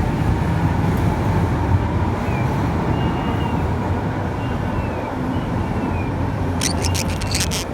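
Steady low rumbling background noise with a few faint, short, high chirps from a green-cheeked conure chick, and a quick run of sharp clicks near the end.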